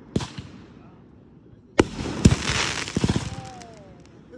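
Aerial fireworks going off: a sharp shell burst just after the start with a fading crackle, then a second sharp bang about a second and a half later followed by a dense run of crackling and smaller pops that dies away.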